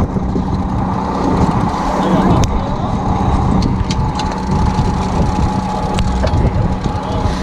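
Steady drone of a fishing boat's engine running, with a few short sharp clicks over it.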